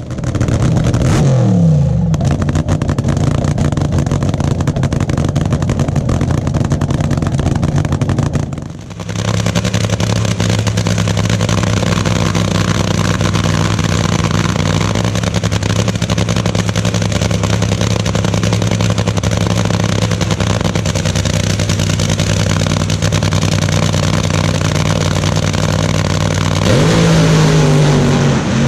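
Nitromethane-burning dragster V8 engine running at a loud, rough, steady idle, the nitro 'cackle'. A rev falls away about a second in, and the engine revs up and drops back again near the end.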